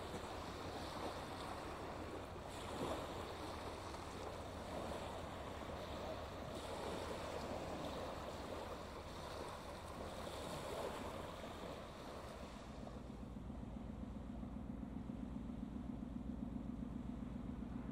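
Small waves lapping and washing onto a shingle beach, the wash swelling and easing. About twelve seconds in, the sound changes to a steady low engine rumble with a fast throb.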